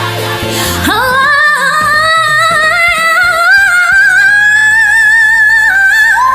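A woman singing one long held note, wavering and slowly rising for about five seconds, then sliding up into another sustained note near the end, over backing music.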